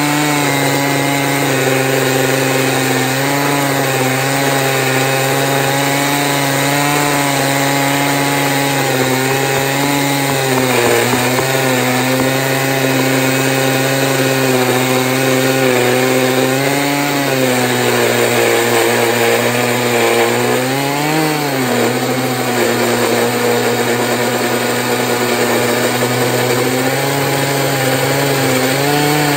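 Stihl MS880 two-stroke chainsaw running at full throttle in an Alaskan chainsaw mill, ripping a long cut through a beech log. The engine note holds steady, dipping briefly in pitch a few times as it loads up in the cut.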